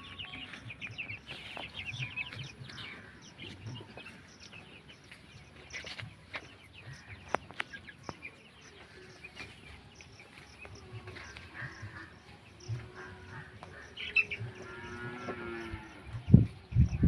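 Flock of Banaraj chickens chirping and calling, with a longer drawn-out call about two-thirds of the way through and a few loud knocks near the end.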